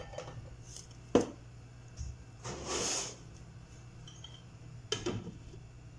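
Cookware being handled at a wok: a sharp knock about a second in, a short hissing rustle near the middle, and a lighter knock about five seconds in, over a low steady hum.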